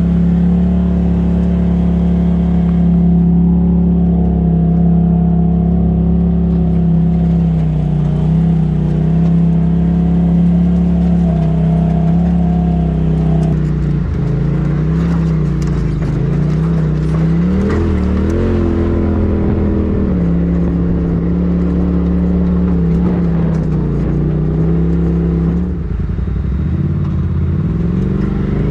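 Polaris RZR side-by-side's engine heard from inside the cab, running at a steady pitch, then rising and falling with the throttle from about halfway through as it crawls over rough rock, with scattered rattles and knocks.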